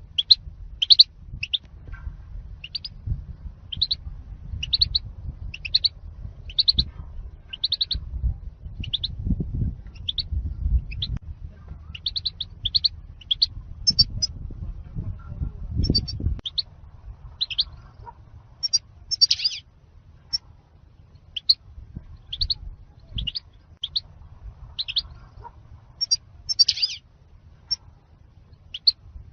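European goldfinch calling in the 'zilzal' style prized by goldfinch keepers: short, bright chirps repeated about once a second. A low rumble runs underneath, heavier in the first half.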